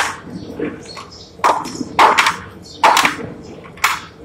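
A metal scoop clanking and scraping against a steel tray while lumps of crushed oilseed are scooped and broken up: about five sharp clanks at uneven intervals, with lighter knocks between them.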